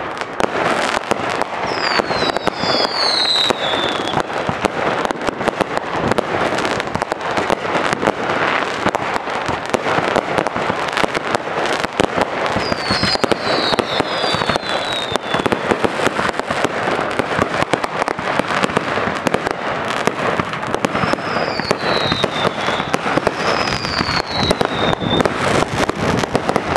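Consumer fireworks going off in rapid succession: a dense, unbroken stream of pops, bangs and crackles, with short high falling whistles at three points.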